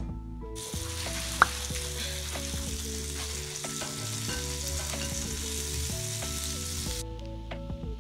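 Butter and bread frying in a nonstick pan: a steady sizzle that starts about half a second in and stops suddenly near the end, with one sharp click about a second and a half in. Background music plays underneath throughout.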